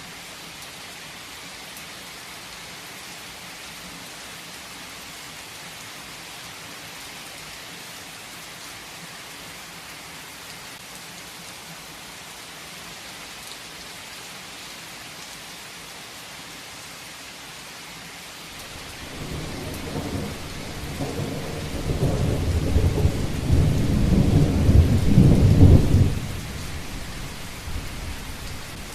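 Heavy rain falling steadily with an even hiss. About two-thirds of the way in, a roll of thunder rumbles up, grows loudest for several seconds, then drops off fairly suddenly while the rain keeps on.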